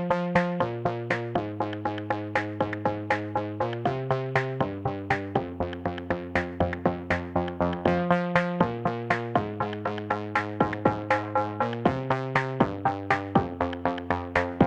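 Electronic background music: a steady fast pulse of synthesizer notes, about five a second, over a bass line that changes note every second or so.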